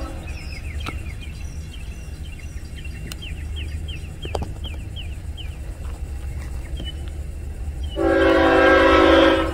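Freight locomotive's multi-chime air horn sounding one loud blast of about a second and a half, near the end, over a low steady rumble from the approaching train.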